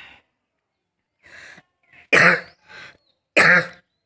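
A person coughing in a string of short, separate coughs, some voiced and hoarse, with the two loudest a little after two seconds in and near three and a half seconds. It is a real cough from a cold, with the throat burning.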